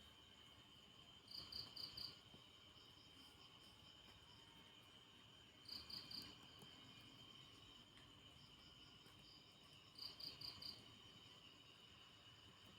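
Faint night insects, crickets: a steady high trill, with a short chirp of about four quick pulses roughly every four seconds, three times.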